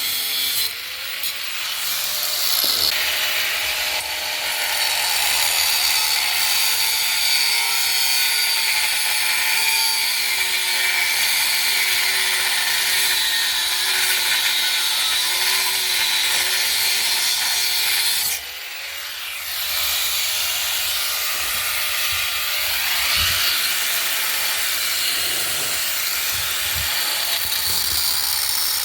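Handheld electric power tool running and working a part, its motor pitch sagging under load. It stops briefly about 18 seconds in and spins up again.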